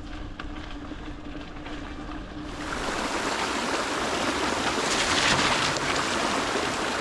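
Rushing water, a steady dense roar that swells up about two and a half seconds in and eases off near the end; before it, a faint low steady hum.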